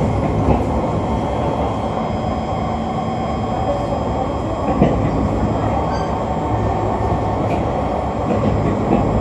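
Kawasaki C151 MRT train running at steady speed, heard from inside the carriage: an even rumble of wheels on the track with faint steady whining tones above it, and a brief knock about five seconds in.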